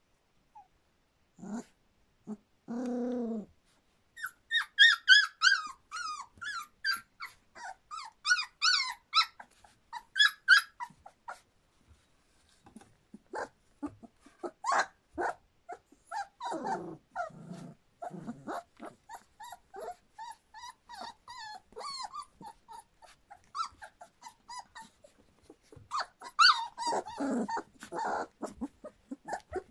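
Three-week-old Standard Poodle puppies vocalising. A short low drawn-out cry comes about three seconds in. It is followed by a long run of rapid high-pitched yips and squeaks, with lower growls in the middle and again near the end.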